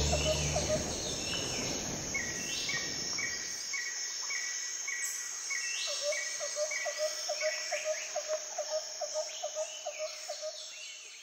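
Background music fading out over the first few seconds, leaving birds calling over a steady high insect hum. One bird repeats a short note about three times a second, and later a lower, quicker series of notes runs at about four a second, with scattered falling calls.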